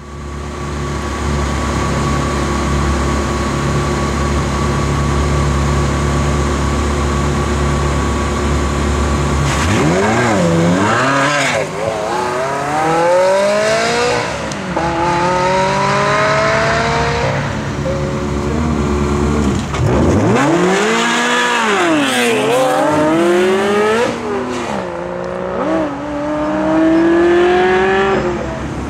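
Ferrari 360 Spider's V8 idling steadily, then accelerating hard through the gears from about ten seconds in, the revs climbing and dropping back at each upshift. About twenty seconds in the revs fall away, and a second full-throttle run through the gears follows.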